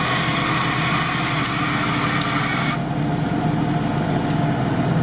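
Off-road vehicles idling in a swamp while a stuck SUV is winched out. A high, hissing whine, likely the electric winch pulling, runs over a steady engine hum and cuts off suddenly about three seconds in.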